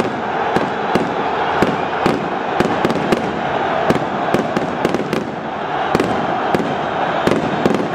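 Fireworks and firecrackers going off in an irregular run of sharp cracks, about two or three a second, over the steady noise of a large stadium crowd.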